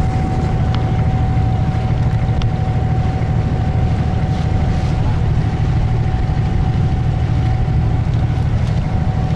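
Diesel engine of an abra, a wooden water taxi, running steadily under way: a constant low drone with a thin high whine over it.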